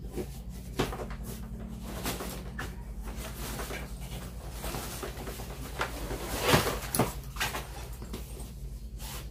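Handling noises from unpacking a suitcase: plastic wrapping rustling and crinkling with light knocks and clicks, the loudest cluster about six and a half seconds in, over a steady low hum.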